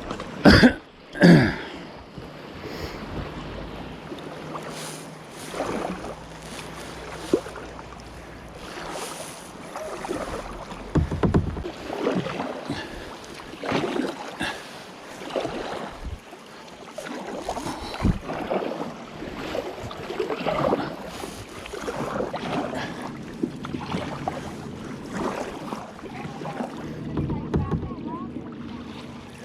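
Kayak paddle strokes in lake water, a splash and drip swelling about every two seconds, with two loud knocks near the start.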